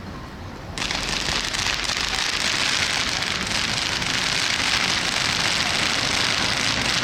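Gaoo Memories firework battery going off: a dense, steady crackling hiss that starts suddenly about a second in and holds without separate bangs.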